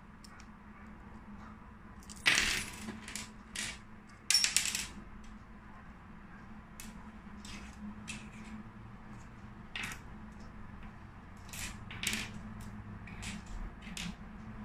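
Small metal parts of a minibike fuel valve clicking and clinking as it is taken apart with a screwdriver and its screws, clip and lever plate are set down on a wooden table: two louder clinks about two and four seconds in, then a scatter of lighter clicks.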